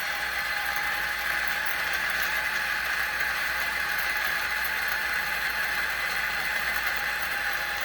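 Lagom P64 flat-burr coffee grinder running at a low 350 RPM, its 64 mm SSP unimodal burrs grinding coffee beans: a steady, even grinding whir.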